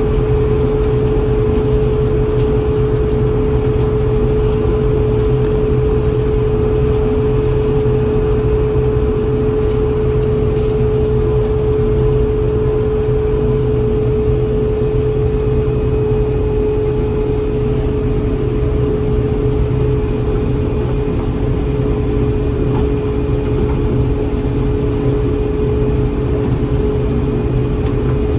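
John Deere 4400 combine running steadily: an even engine drone with a constant whine held at one pitch above it.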